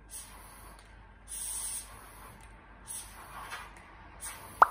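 Breath blown in four short puffs through a toy blow pipe (floating-ball game), each a hissing rush of air, about every second and a half. A single sharp click near the end.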